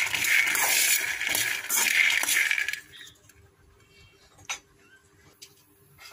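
Raw peanuts being stirred in a dry metal pan while roasting, rattling and clinking against the metal for about three seconds, then stopping. A single faint click follows a little later.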